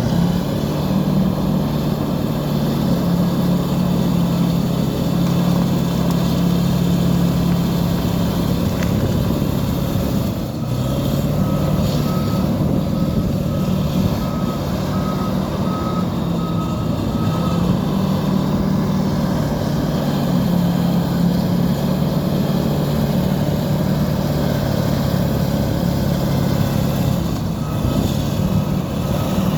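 Diesel engine of a Fiat-Kobelco crawler bulldozer running under changing load. A reversing alarm beeps about once a second from about ten seconds in for several seconds, and again near the end.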